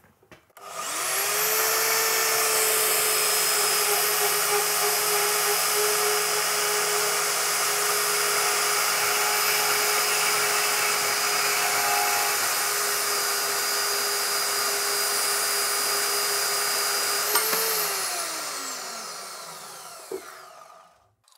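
Vevor portable metal-cutting bandsaw starting up about half a second in and running steadily as its blade cuts through a steel tube, with a steady motor whine under a dense hiss. Near the end it is switched off, and the whine falls away as the motor and blade wind down.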